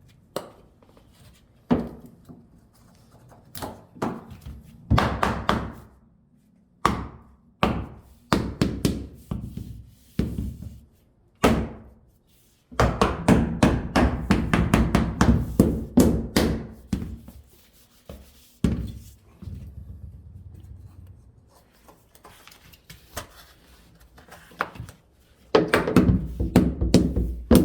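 Wood flooring boards being knocked into place: repeated hard wooden knocks in short groups, with a long run of rapid strikes in the middle and another near the end.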